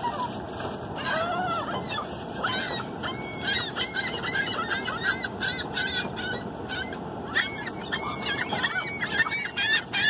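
A flock of gulls calling, with many short calls that rise and fall, overlapping and coming thickest from about four seconds in and again near the end. The gulls are clamouring around people handing out food.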